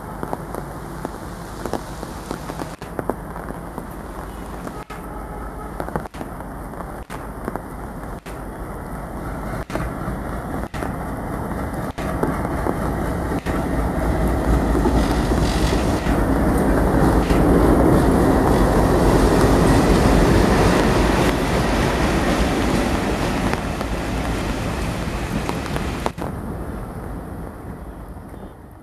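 Indian Railways WDG-4 diesel-electric locomotive hauling a passenger train as it approaches and passes close by. Its two-stroke EMD diesel engine's deep rumble builds to a peak about two-thirds of the way through, then fades as the coaches roll past.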